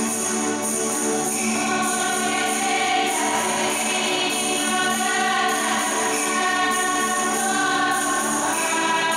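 Music with a choir singing: held notes that change every second or so over instrumental accompaniment.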